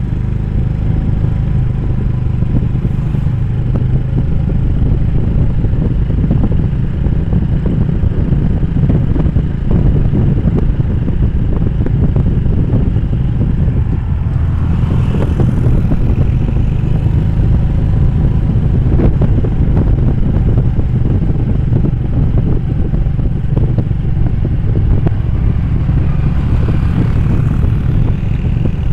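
Motorbike engine running steadily while riding, a constant low drone.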